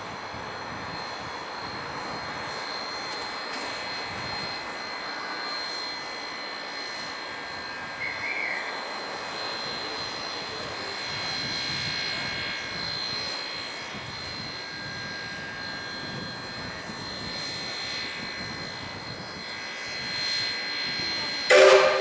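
Queensland Rail BB18¼ class steam locomotive standing at the platform, its steam hissing steadily with a thin high whine over it. A short, loud blast comes near the end.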